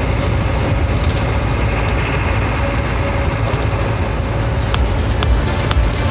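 Steady rumble of a bus's engine and road noise heard from inside the cabin. A little before the end, a fast, even ticking beat of electronic music comes in over it.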